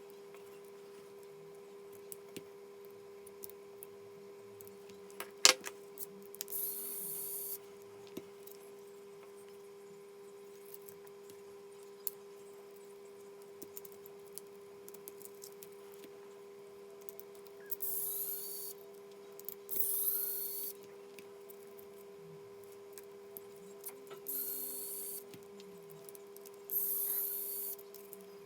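Small electric screwdriver running in five short bursts of about a second each, every burst starting with a rising whine as the motor spins up, undoing screws during disassembly. Small clicks of parts being handled come between the bursts, with one sharp click just before the first burst.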